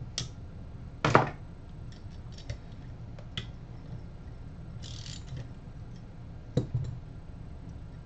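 Parts of a coffee grinder's electric motor and hand tools being handled on a bench: a few sharp knocks and clicks, the loudest about a second in and a double one near the end, and a short scrape about five seconds in, over a low steady hum.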